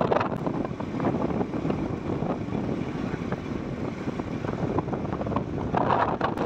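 Wind rushing over the microphone of a moving motorcycle, with road noise beneath, swelling briefly near the end.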